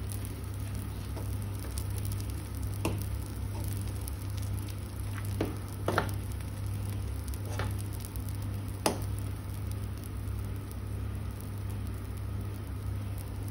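Dosa batter sizzling on a hot tawa over a medium flame as its first side cooks, with a few sharp pops and ticks; the loudest come about six and nine seconds in.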